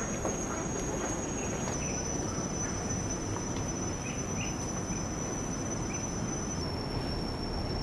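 Forest insects keep up a steady high-pitched drone, its pitch stepping down slightly twice, over a steady rushing background noise.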